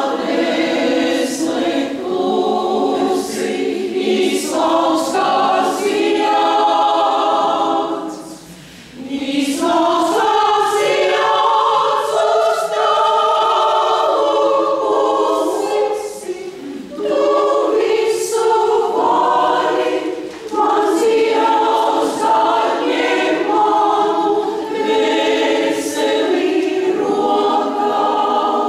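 Senior women's choir singing a cappella in several parts, in sustained phrases with short breath pauses, the longest about nine seconds in.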